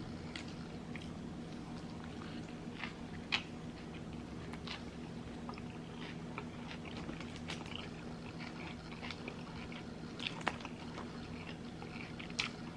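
A person chewing and biting food close to the microphone: scattered small crunches and wet mouth clicks, with a few louder bites about three, ten and twelve seconds in, over a low steady hum.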